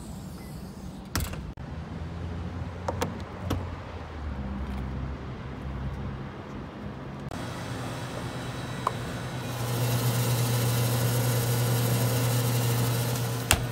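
Door handling sounds: several sharp latch clicks and knocks as doors are worked open, then a loud steady low electrical hum of a store's refrigerated display coolers, ending in a sharp click as a cooler door is opened.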